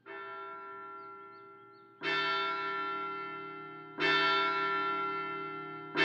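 A clock tower bell striking, three strokes about two seconds apart, each ringing on and slowly fading; the first stroke is softer than the other two.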